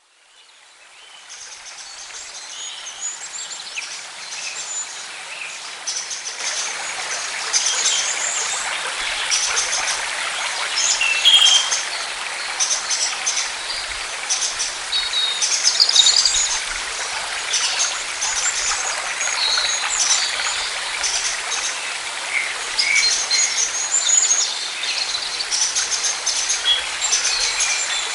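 Countryside ambience: many birds chirping and calling over a steady hiss. It fades in from silence at the start, and the hiss grows louder about six seconds in.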